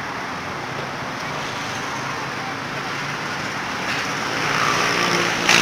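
Steady road traffic noise, with a vehicle passing and growing louder over the last second and a half.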